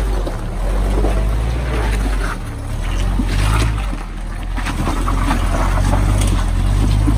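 Willys flat-fender jeep's engine running low and steady in a slow crawl up a rocky, muddy trail, easing off briefly twice, with crackles of the tyres working over rock and mud.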